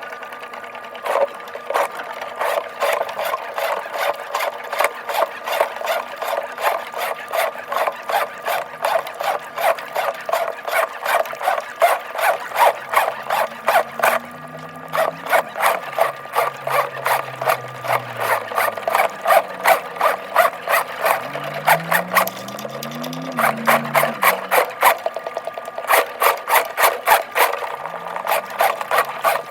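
Motorized drain-cleaning machine running with a fast rhythmic clatter, about four beats a second, as its cable works through a backed-up 2-inch laundry and kitchen drain line. It stops briefly a few times, and a lower hum rises and falls in the middle.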